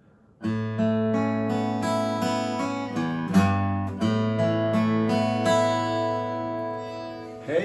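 Intro music on acoustic guitar, strummed and plucked chords that start about half a second in.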